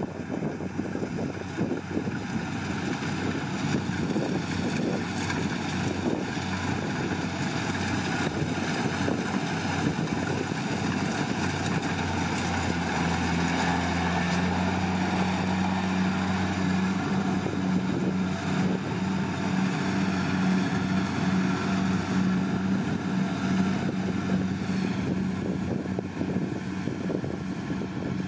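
Kubota DC70 Plus rice combine harvester running steadily while it cuts, its diesel engine and harvesting machinery making a continuous mechanical din. Its engine hum grows stronger about halfway through as the machine passes close, then eases near the end.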